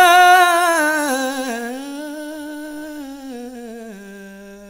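Male fado singer's voice holding one long drawn-out note with a wide vibrato, slowly stepping down in pitch and growing steadily quieter, unaccompanied.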